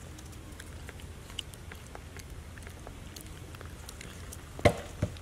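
Faint scattered clicks and rustling over a low steady hum, with a sharp knock about four and a half seconds in and a smaller one just after.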